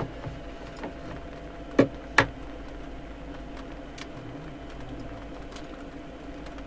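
Two sharp knocks, about half a second apart, over a steady low hum.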